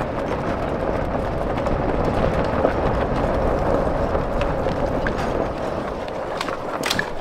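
Running footsteps on a dirt and gravel trail, heard from a moving handheld camera, with a steady low rumble of wind on the microphone. A few sharp clicks come near the end.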